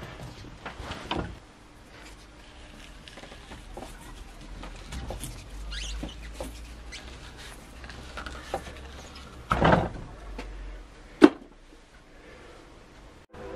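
Rubber footpeg cover being twisted and worked off a metal moped footpeg clamped in a bench vise: scattered rubbing and scraping handling noises, a heavier knock about ten seconds in and a sharp click just after it.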